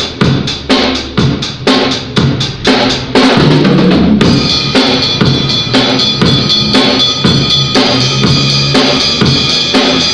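Drum kit being played. An even beat of bass drum and snare hits, about two and a half a second, turns into a denser groove about three seconds in, with cymbals ringing over it from about four seconds in.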